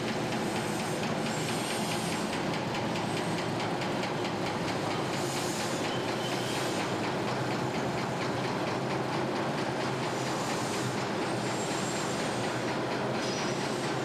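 Powered roundhouse turntable turning with the steam locomotive LMS Jubilee 45593 'Kolhapur' on its deck: a steady mechanical running rumble with a fine, even ticking and a few brief hissy swells.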